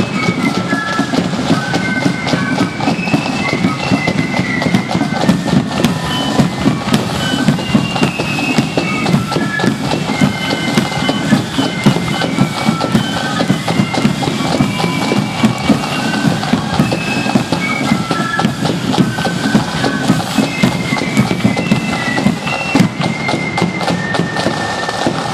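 Marching flute band playing a tune: a high flute melody over steady, loud drumming.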